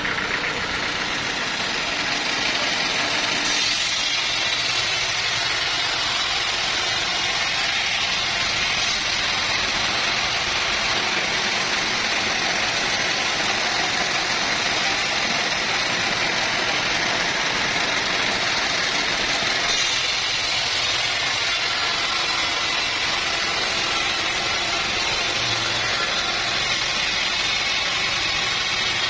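Sawmill saw running steadily while cutting a long teak log, a continuous machine noise.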